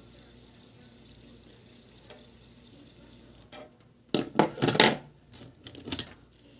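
Fidget spinners clattering and clinking against one another as they are handled: a short burst of sharp clicks and rattles starting about four seconds in and lasting about two seconds.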